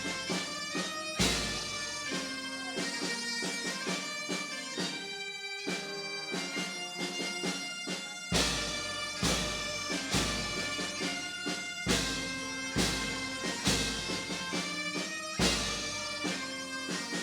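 Bagpipes playing a tune over a steady drone, with a bass drum beating about once a second.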